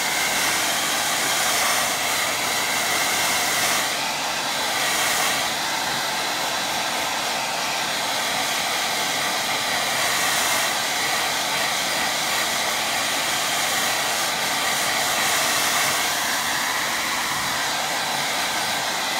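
BaByliss handheld hair dryer running steadily: a constant rush of blown air with a faint steady whine.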